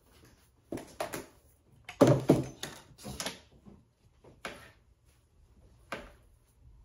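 Handling noise from making a bed: a few separate knocks and rustles as pillows, bedding and objects are moved, the loudest thump about two seconds in.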